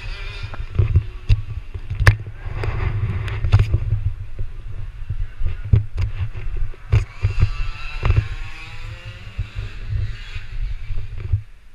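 Loud low rumble from wind buffeting and handling on a head-mounted GoPro's microphone, with scattered knocks as the camera is jostled.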